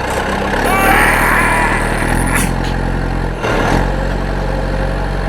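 Small engine running steadily with a low, even hum, which dips briefly about three and a half seconds in.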